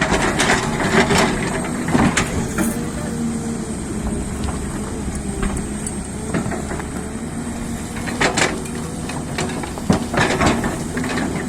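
Hyundai excavator running steadily under load, its engine and hydraulics making a held hum, with scattered sharp knocks and cracks of rock and soil as it digs, a few near the start and a cluster in the last few seconds.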